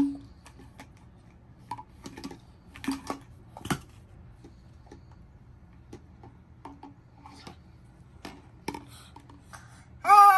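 Scattered light clicks and taps of a baby handling and mouthing a large plastic water bottle, with a few brief soft baby sounds between them. Right at the end a loud, high-pitched squeal starts.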